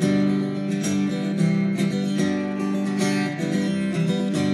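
Acoustic guitar strummed in a steady rhythm, its chords ringing.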